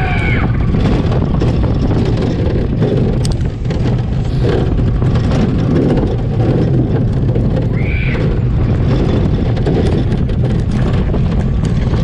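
Family roller coaster train running along its tubular steel track, heard from onboard: a steady loud rumble and clatter of the wheels. A short high squeal sounds about eight seconds in.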